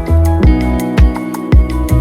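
Background music with a steady beat: kick drum hits about twice a second under plucked and sustained instrument notes.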